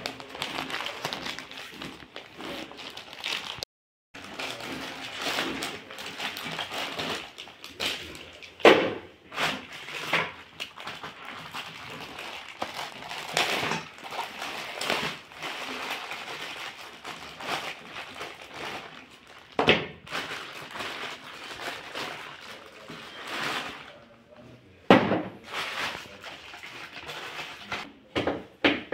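Clear plastic bags of TV wall-mount screws and fittings rustling and crinkling as they are handled, with a few sharp knocks of parts set down on a wooden table. The sound cuts out briefly about four seconds in.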